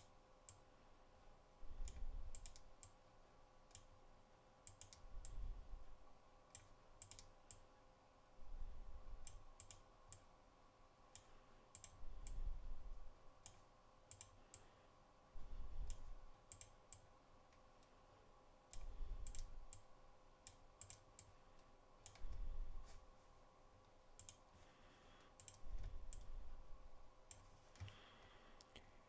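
Computer mouse clicking many times, in small clusters, while resistor symbols are dragged into place in a KiCad schematic, over a faint steady hum. A low rumble lasting about a second comes back every three to four seconds and is the loudest sound.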